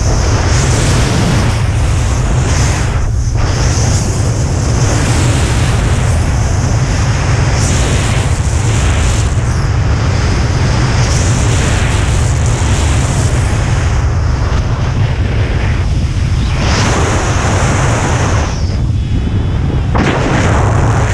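Wind buffeting a camera microphone during a parachute descent under canopy: a loud, steady low rumble with a rushing hiss that swells and eases every few seconds.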